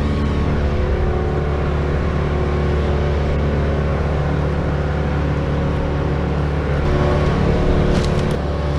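An engine running steadily at a constant speed, growing a little louder with a few sharp clicks near the end.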